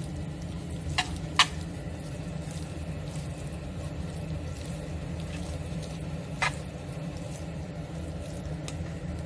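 Metal tongs stirring and tossing creamy fettuccine in a non-stick frying pan: soft wet stirring with a few sharp clicks of the tongs against the pan, the loudest about a second and a half in and another about six and a half seconds in. A steady low hum runs underneath.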